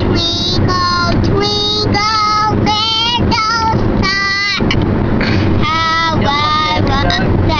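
A two-year-old girl singing a children's song in a high voice, one held note after another with short gaps between them.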